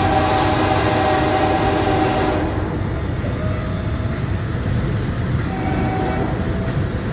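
Diesel freight locomotive's horn sounding a long chord of several notes for about two and a half seconds, then two shorter, fainter blasts, over a steady low rumble.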